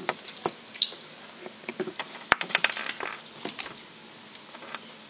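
Small plastic toy wrestling figure being handled and set down on a hard tabletop: an irregular run of light clicks and taps, with one sharp click a little over two seconds in and a busier cluster just after.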